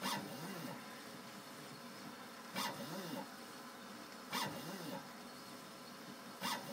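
Suregrave engraving machine cutting lettering into a pewter tankard, over a steady machine hum. Four times, roughly two seconds apart, there is a short sharp scratch of the cutter on the metal, and each is followed by a short whine that rises and falls in pitch.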